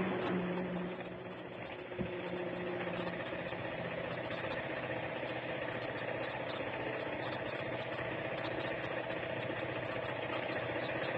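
A vehicle's engine running steadily with road noise, heard from aboard the moving vehicle on a downhill ghat road. A low hum fades out in the first few seconds, and there is a single knock about two seconds in.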